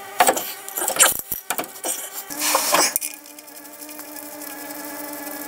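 Clicks and scraping of metal parts as a car's driveshaft is worked back into its hub carrier by hand. About halfway in, this gives way to a steady buzzing hum.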